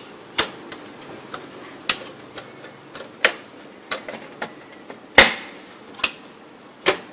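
Irregular sharp plastic clicks and knocks from hands handling the casing of an HP LaserJet P1102 laser printer, about a dozen in all, the loudest a little past five seconds in.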